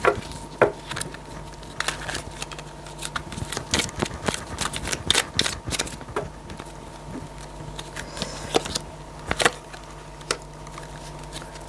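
Oracle cards being handled and shuffled by hand: irregular taps, clicks and card slaps, over a steady low hum.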